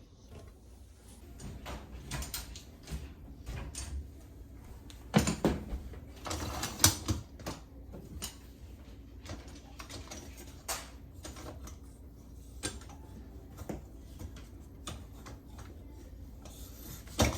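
Plastic dishwasher parts clicking and knocking as they are handled and fitted in the tub, with a burst of louder clatter about five to seven seconds in.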